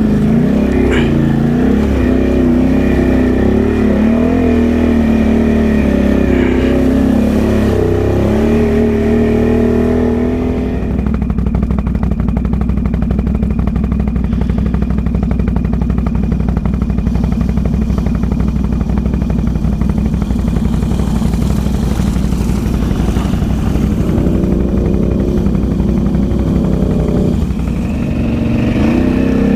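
Can-Am Outlander ATV engine running on a muddy trail, its pitch rising and falling with the throttle. About ten seconds in the sound changes abruptly to a steadier, rougher engine drone. The rising-and-falling note comes back near the end.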